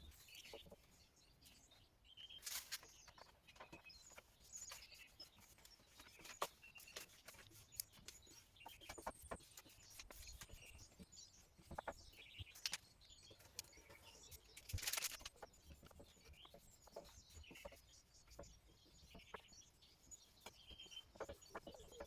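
Near silence, with faint scattered clicks and taps and a few louder knocks. Faint bird chirps run in the background.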